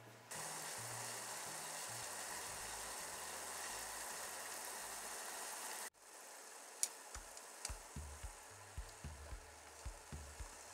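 Soy-and-dashi broth simmering in an aluminium yukihira pan on a gas burner, a steady hiss that cuts off abruptly about six seconds in. After that it goes quieter, with light clicks of chopsticks against the pan.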